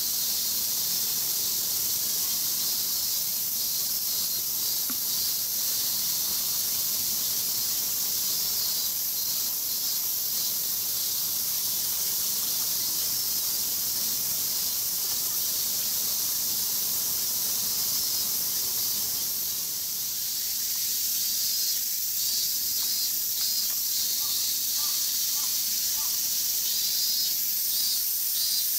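Steady high-pitched hissing drone of a summer cicada chorus, with faint pulsing in it.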